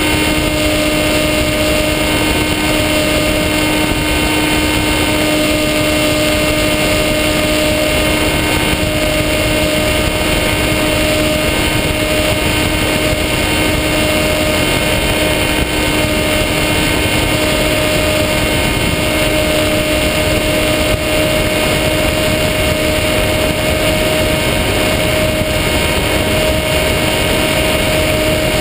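Electric motor and propeller of a Skywalker FPV model plane in flight, heard from the onboard GoPro: a steady hum with a higher tone over a rush of air.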